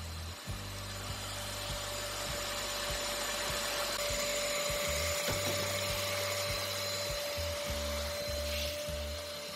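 Exceline ZN1402 1000-watt ash vacuum running with a steady motor whine, its crevice nozzle sucking ash out of a pellet stove's firebox.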